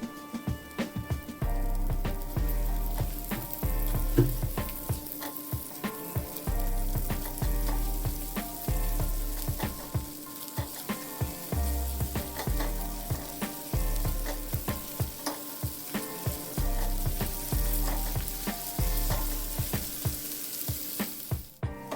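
Food sizzling as it fries in a hot pan, with background music playing over it.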